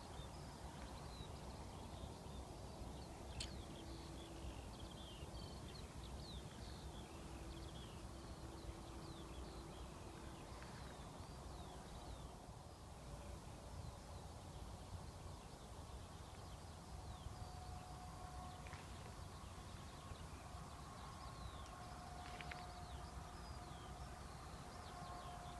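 Faint outdoor ambience at dawn: scattered distant birdsong, many short chirps, over a low steady rumble.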